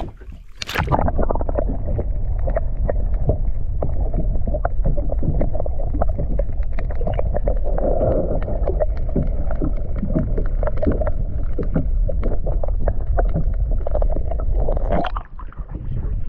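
Fiberglass powerboat under way: a steady low rush of wind on the microphone with water splashing and slapping against the hull. It starts about a second in and drops away about fifteen seconds in.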